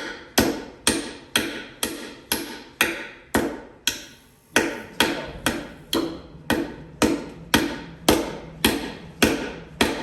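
Steady hand hammering of CC sinker nails into hardwood, about two blows a second, each a sharp strike with a short ring, with a brief pause a little before the middle.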